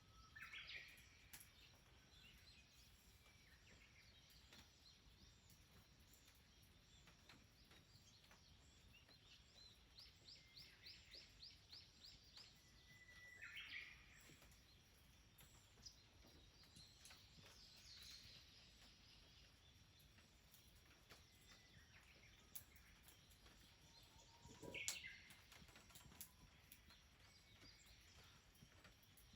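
Wild birds calling now and then against a faint, quiet outdoor background. Near the middle comes a quick run of about ten high notes, and the loudest, sharpest call comes near the end.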